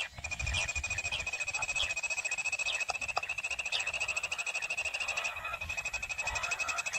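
Animal calls: a steady, fast-pulsing high trill starts just after the beginning and runs on, with a few short falling chirps over it in the first half.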